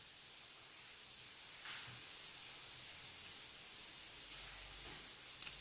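Steady faint hiss of the recording's background noise, with a soft brief sound about two seconds in and a few light ticks near the end.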